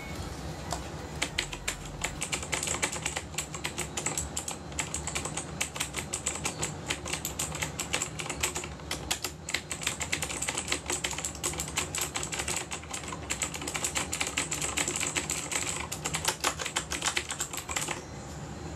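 Typing on a Nimxo K005-1 mechanical keyboard with clicky, tactile Nimxo Blue switches: a fast, dense run of key clicks that stops shortly before the end.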